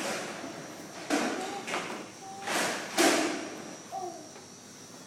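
Restaurant chairs being pushed and set down, giving a series of knocks and thuds with short scrapes; the loudest knock comes about three seconds in.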